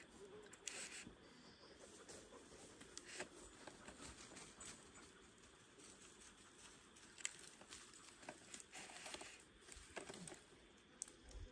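Faint scratching, rustling and scattered small clicks of hands working at a tree trunk, fastening a trail camera to it.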